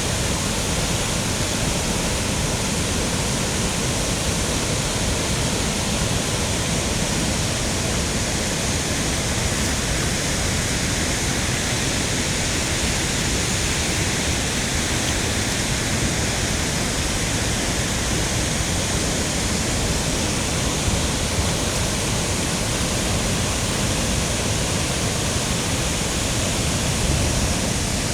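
River waterfalls running full, a steady rushing roar of falling water.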